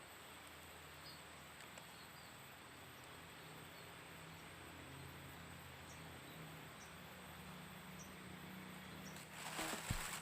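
Faint outdoor ambience: a steady high-pitched insect drone with a few short, small chirps over a soft hiss. About nine seconds in, louder knocks and music begin.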